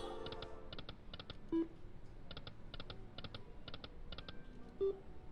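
Slot machine making light, rapid clicking in small clusters about twice a second, with a short tone sounding twice, about a second and a half in and again near the end.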